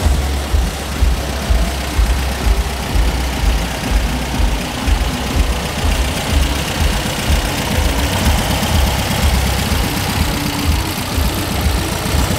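Air-cooled flat-four engine of a split-window Volkswagen bus running at low speed as the bus rolls slowly past at close range, with a low, uneven beat.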